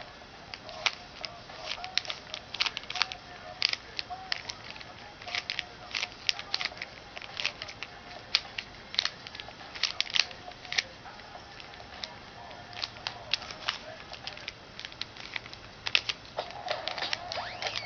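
Plastic Rubik's cube being twisted by hand, its layers clicking and clacking in quick irregular runs of turns, several a second, with short pauses between runs.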